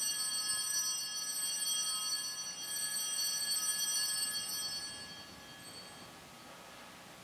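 Altar bell rung at the elevation of the chalice after the consecration: a bright, ringing sound of several high tones that fades away over about five seconds.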